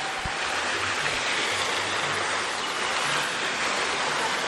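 Steady, even rush of moving water.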